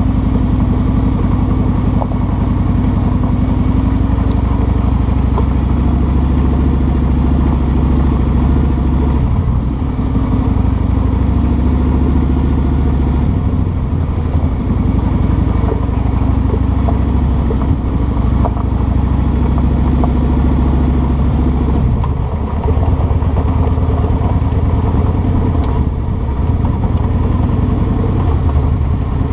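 Kawasaki Vulcan 2000's big V-twin engine running under way, heard from the rider's seat. It is steady, with a few brief dips in level as the throttle eases and opens again.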